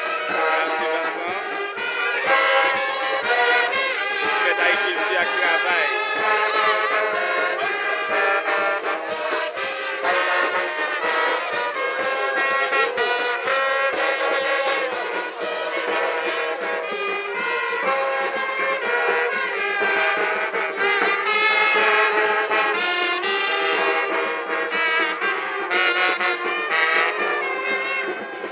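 Marching brass band of trumpets and baritone horns playing a tune, the notes sounding without a break.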